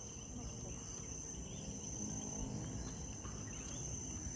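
Night-time chorus of crickets: a steady, faint, high-pitched trill over a low rumble.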